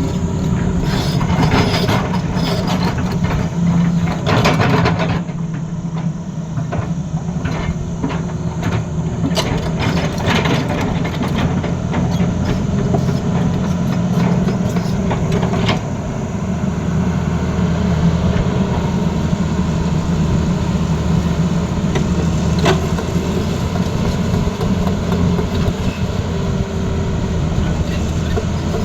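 Hydraulic excavator's diesel engine running steadily. Scattered clicks and knocks, thickest in the first few seconds, are typical of the machine working.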